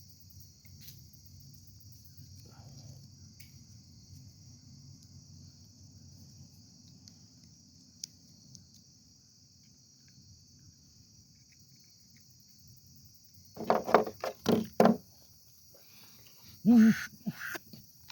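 Homemade wooden duck call with a wedged reed, blown in a quick run of about four short quacks, then another short run of two or three. The reed has lost its play and locks up because its slope was not sanded down along with the deck.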